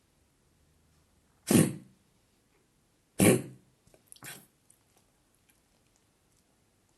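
A dog coughing: three short, harsh coughs a second or so apart, the last one weaker.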